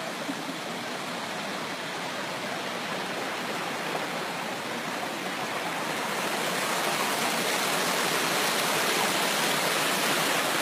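Rocky mountain stream rushing over boulders and small cascades: a steady rush of water that grows louder about six seconds in.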